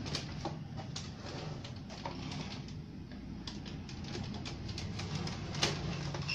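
Scattered light clicks and knocks of the plastic rear cabinet of a Sony CRT television being handled and fitted into place, over a steady low hum.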